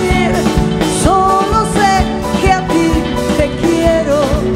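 Live pop-rock band playing a song on drum kit, bass and guitars: a steady drum beat under held chords, with a melody line gliding and wavering above.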